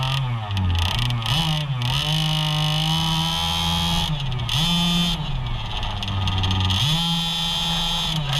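Losi 5ive T's 26cc two-stroke engine running close up, its pitch rising and falling as the throttle is opened and backed off.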